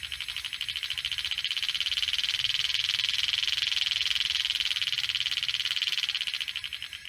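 Rapid, even clicking from a 2012 Honda Odyssey's new Power Stop slotted and drilled rotors and pads with the brakes not applied, about ten clicks a second. It grows louder toward the middle and fades near the end.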